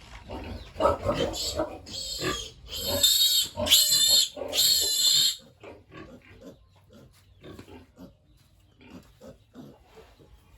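Pigs squealing: a run of loud, shrill squeals from about two to five seconds in, then only faint short sounds.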